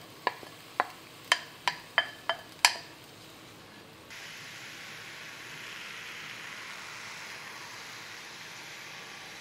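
About seven sharp, ringing taps of a wooden spatula knocking against the bowl and pan over the first three seconds. About four seconds in, a steady sizzle sets in: shredded cabbage frying in a hot cast-iron skillet.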